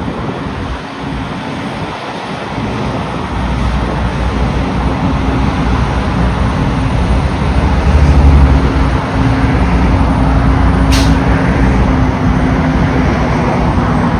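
Jet noise from a Boeing 747-8's four GEnx-2B turbofans as the airliner passes low overhead on final approach. A rumble with a steady low hum swells to its loudest about eight seconds in and stays loud, with a brief hiss about eleven seconds in.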